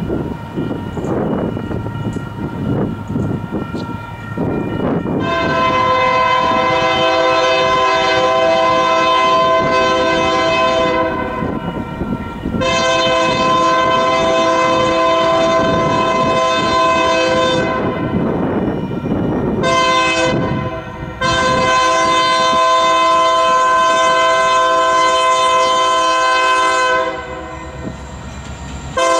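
Union Pacific diesel locomotive's horn sounding the grade-crossing signal as the freight train approaches: two long blasts, a short one, then a long one, a chord of several notes at once. For the first five seconds the horn is heard only faintly over the low rumble of the oncoming train.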